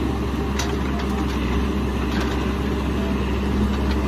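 Caterpillar 416F backhoe loader's diesel engine running steadily as the backhoe arm works, with a couple of faint knocks.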